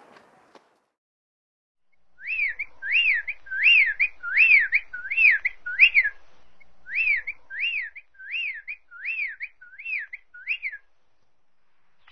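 A series of about a dozen clear whistled notes, each rising then falling in pitch, a little more than one a second, with a short break around the middle.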